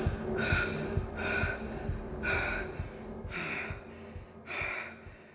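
A man breathing hard in ragged, gasping breaths, about one a second, growing fainter toward the end.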